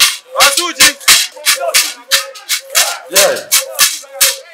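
Traditional music driven by a shaker rattle beaten in a quick even rhythm of about four strokes a second, over a steady held tone. Voices call out about half a second in and again about three seconds in.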